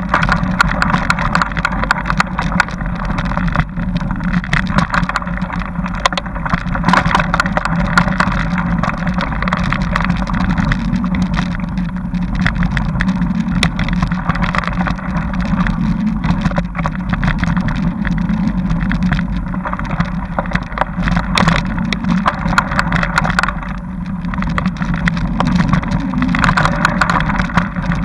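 Riding noise of a bike on a dirt forest trail, picked up by a camera mounted on it: a constant rumble and rattle with many small knocks from bumps in the trail.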